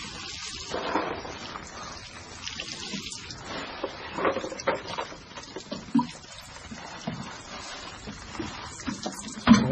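Water splashing and trickling onto potted seedlings, with scattered small knocks and clicks.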